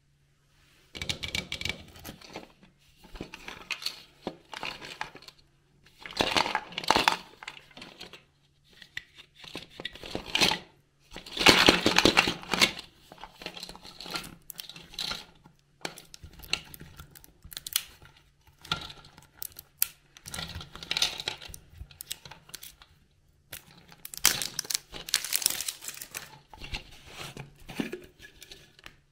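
Thin plastic wrapping and a plastic seal strip crinkled and torn off a round plastic surprise-toy container by hand, in irregular bursts of crackling, loudest about twelve seconds in. The container's screw-on plastic lid is twisted open near the end.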